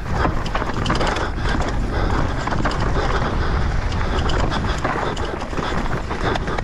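Mountain bike ridden down a rough trail: wind buffeting the microphone over the noise of tyres on dirt and rock, with the bike rattling in many small knocks over the bumps.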